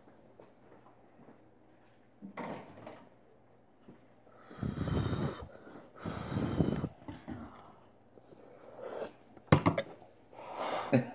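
A person blowing on a spoonful of hot beans: two long breathy blows of about a second each, after a shorter one, then a few sharp clicks near the end.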